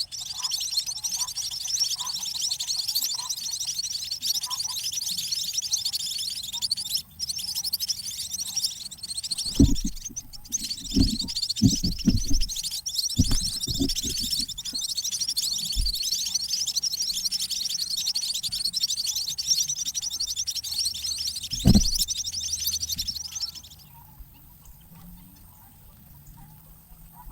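Emprit (munia) nestlings chattering and begging in a dense, continuous stream of high, rapid calls as they are fed, stopping abruptly near the end. A few dull thumps sound around the middle and once more later.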